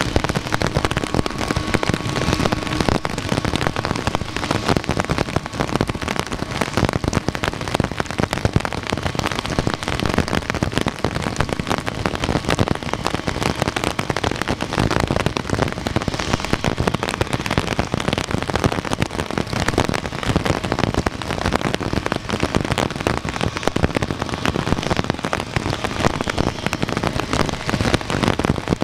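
Heavy rain falling hard, a loud, dense crackle of drops that holds steady throughout. A faint steady whine under it fades out within the first few seconds.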